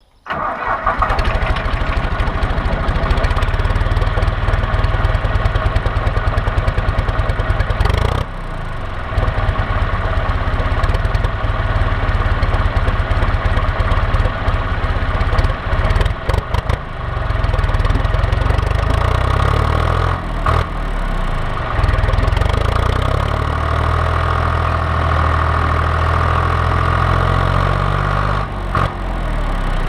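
John Deere 1130 tractor's diesel engine running steadily, its note shifting a few times as the engine speed changes.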